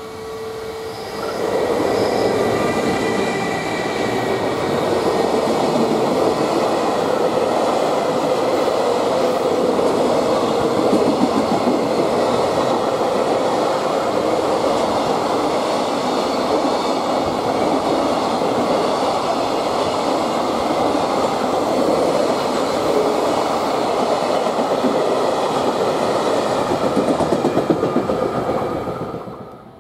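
JR Freight EF210 electric locomotive and a long train of container wagons passing at speed, with the steady clatter of the wheels over rail joints. The sound swells about a second and a half in as the locomotive arrives and falls away near the end as the last wagon goes by.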